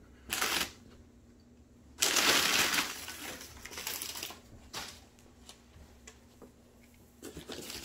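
Crumpled packing paper rustling and crinkling as it is pulled out of a cardboard box: a short rustle, then the loudest and longest one about two seconds in, trailing off into lighter crinkles.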